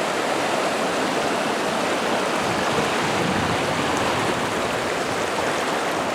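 River water rushing over rocks, a steady loud rush.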